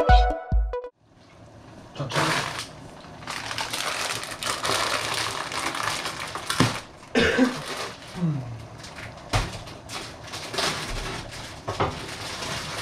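An electronic music beat that stops about a second in, then a plastic bag of pasta crinkling and rustling as it is handled and opened.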